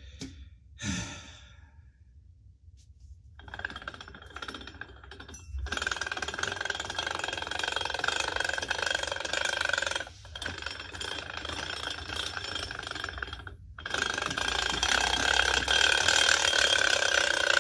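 Gear train of a large homemade flywheel toy car whirring and rattling as the car is pushed along carpet to spin up its flywheel. It comes in three long bouts with short breaks, the last the loudest. The builder puts the rattling down to probably not the best gear choice or gears not depthed in properly.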